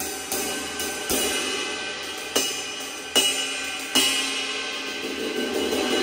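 New HeartBeat cymbals on a drum kit struck one at a time with wooden drumsticks: about seven separate hits over the first four seconds, each left to ring. A fuller, sustained cymbal wash builds near the end.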